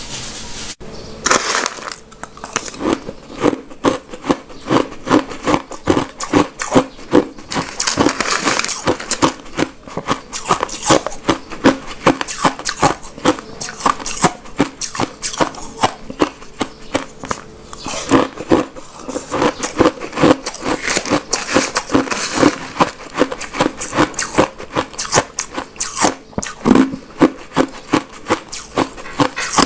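Crushed ice being chewed and crunched between the teeth close to the microphone, a quick, steady run of crisp crunches, a couple a second.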